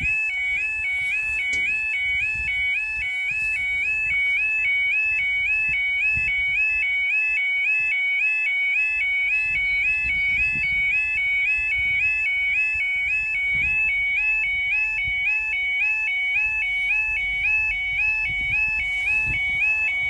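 Level crossing's electronic yodel warning alarm sounding while the barriers are down: a two-tone warble that repeats quickly and without a break, with a low rumble underneath.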